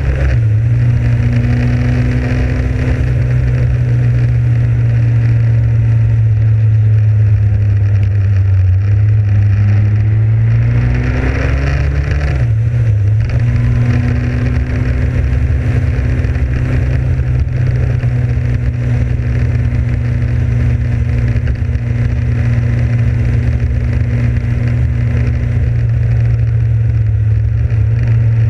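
Motorcycle engine running steadily at cruising speed, with wind noise rushing over the microphone. About halfway through, the engine note rises, drops briefly and then settles back to a steady pitch.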